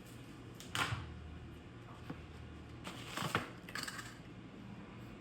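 Small accessories and their packaging being handled: short rustles about a second in and again around three seconds, with a light click in between, over a faint steady room hum.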